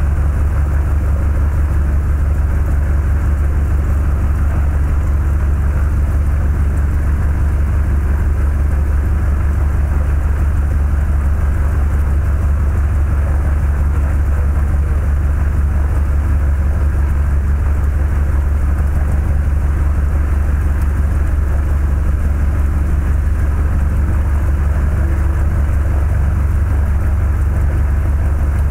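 Cessna 172's piston engine and propeller running steadily, a constant low drone heard from inside the cabin.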